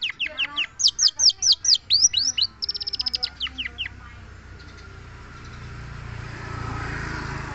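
Long-tailed shrike (cendet) singing a fast run of sharp, downward-sweeping whistles and rapid trilled notes. After about four seconds the song stops and a low rumbling noise swells and then fades.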